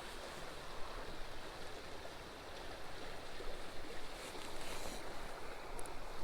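A small mountain creek running: a steady rush of flowing water.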